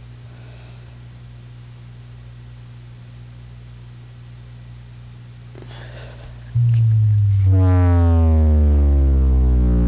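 Altec Lansing computer subwoofer playing deep bass tones for a full excursion test. A faint low hum gives way about six and a half seconds in to a sudden loud deep tone, and a second later to tones sweeping steadily downward in pitch, with the woofer cone moving hard.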